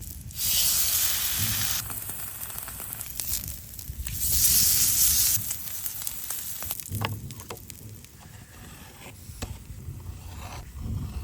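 Steak sizzling over a campfire, with two loud stretches of hissing, one about half a second in and one about four seconds in, and scattered clicks and crackles in between.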